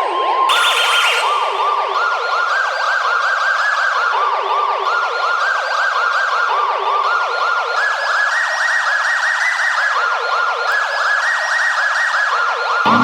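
Electronic emergency-alert alarm tone: a fast warble of rising-and-falling chirps whose pitch steps up and down in stages. It gives way to music just before the end.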